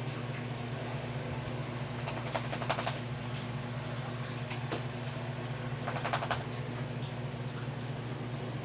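A steady low electric hum, with two brief scraping rattles, about two and a half and six seconds in, as household things are moved about.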